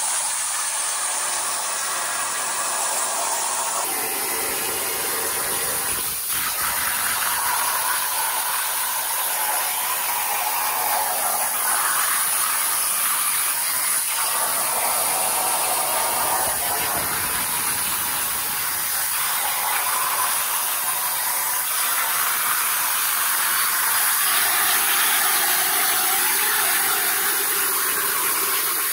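CNC plasma cutter cutting a design out of steel sheet: a steady hiss of the cutting arc and its air jet.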